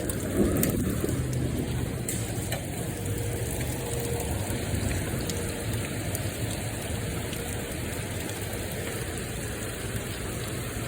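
Heavy rain pouring steadily during a tornado storm, with a low steady hum underneath and a short louder swell of noise right at the start.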